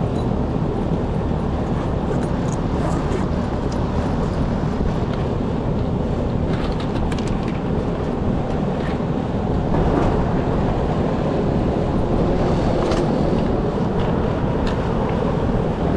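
Steady rushing and rumbling of an attic air handler unit running, with a few light knocks and rustles from working around it. It gets slightly louder about ten seconds in.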